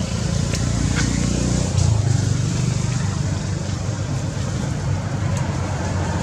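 Steady low hum of a running motor vehicle engine, with faint, brief high ticks over it.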